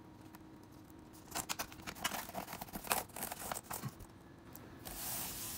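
Plastic keyboard bezel of a Dell Precision 7530 laptop being pressed down into place: a run of small clicks and snaps, then a brief rubbing hiss near the end.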